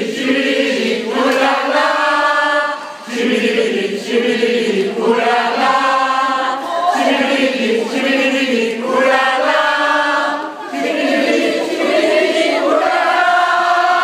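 A men's vocal group singing together in harmony without accompaniment: held chords in phrases of a second or two, separated by short breaks.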